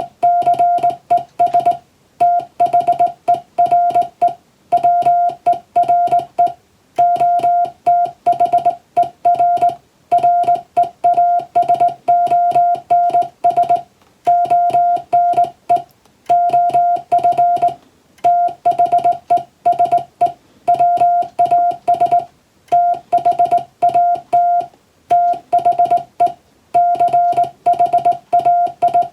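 English Morse code (CW): a single steady mid-pitched beep keyed on and off in rapid dots and dashes, sent in groups with short pauses between them.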